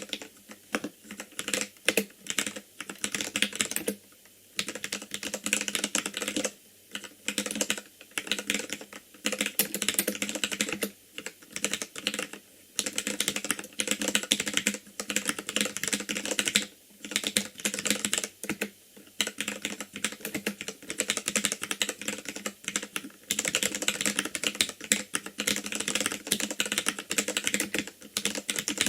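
Typing on an ikbc Poker II mechanical keyboard with Gateron Red linear switches: fast, continuous keystrokes clacking in runs, with short pauses every few seconds.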